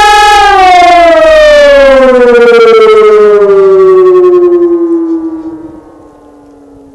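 Civil-defence siren winding down at the end of its signal. Its steady tone begins falling in pitch about half a second in and glides slowly lower while fading over about five seconds, leaving a faint low tone near the end.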